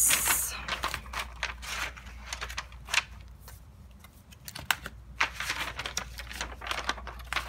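Paper handling: rustling, crinkling and light clicks and taps as a B6 planner is opened, its pages are flipped and a sheet of vellum is moved over them.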